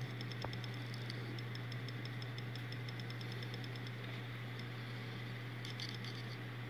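Seagate 4 TB 3.5-inch hard drive spinning with a steady low hum, with rapid faint ticking for about four seconds and a few more ticks near the end. The drive is faulty, and the owner notes these intermittent clicks from it, though he judges they are not a serious problem.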